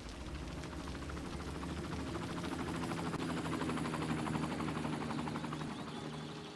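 Engine of a passing motor vehicle running with a low, even hum and a fine rapid rattle, growing louder toward the middle and then fading a little.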